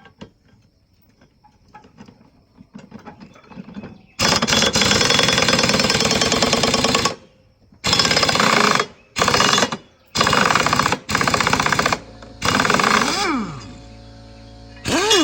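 Pneumatic impact wrench hammering a lawn mower blade's retaining nut loose: one long rattling burst of about three seconds, then five short bursts. A steady hum follows near the end.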